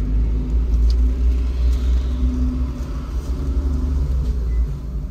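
Kei van driving: steady low engine and road rumble with a faint engine drone.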